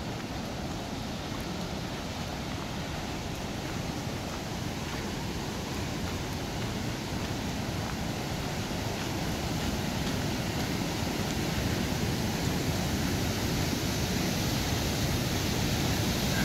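Steady rushing of falling water from a waterfall on the Merced River, growing gradually louder.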